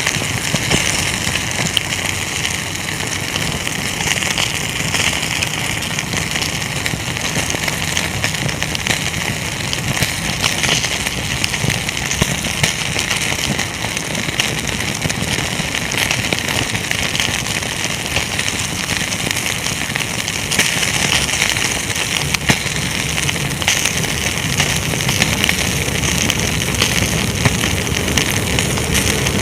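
Wood bonfire burning, crackling and popping steadily with many small sharp snaps over a low rumble of the flames.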